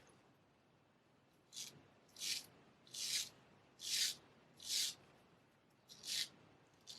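Straight razor shaving stubble: a series of short, crisp scraping strokes as the blade cuts the whiskers, about seven strokes at an uneven pace after a quiet first second and a half.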